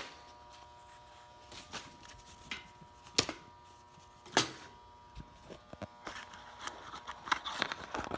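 Scattered light clicks and taps of a small part being handled, over a faint steady tone, with rustling starting near the end.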